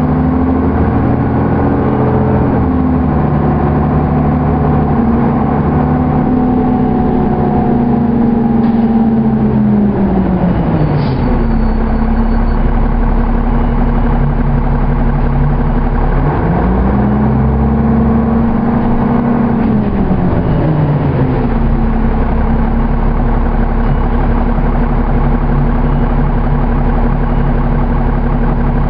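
Cummins ISC inline-six diesel of a 2001 New Flyer D35LF transit bus, heard from inside the bus as it drives. The engine pitch falls about ten seconds in and stays low for several seconds. It climbs again as the bus pulls away, drops once more about twenty seconds in as the Allison automatic shifts up, then runs steadily.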